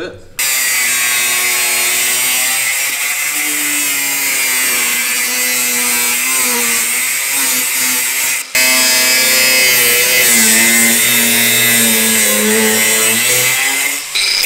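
Angle grinder with a cutting disc cutting through rusted steel in a car's rear wheel arch, a loud continuous grinding hiss whose motor pitch wavers as the disc bites. It drops out for an instant about eight and a half seconds in and stops near the end.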